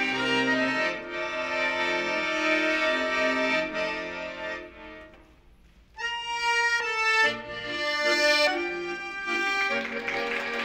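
Excelsior piano accordion playing sustained chords that fade away almost to silence about five seconds in, then a new passage of strong held chords starts abruptly about a second later.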